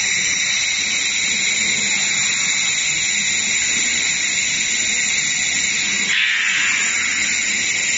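Handheld laser welder running a seam on 1 mm aluminium sheet: a steady, loud hiss throughout, with a short surge of hiss about six seconds in.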